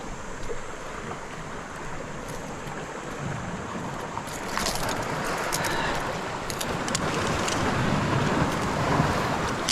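Sea water sloshing and wind on the microphone, with a few sharp clicks about halfway through.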